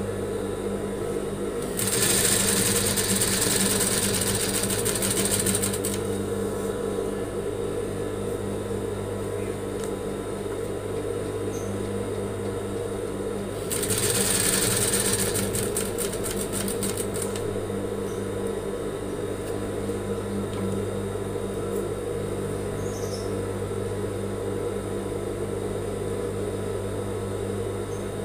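Industrial lockstitch sewing machine stitching lace trim onto a fabric collar. Its motor hums steadily, with two louder spells of fast stitching, about two seconds in and again about fourteen seconds in.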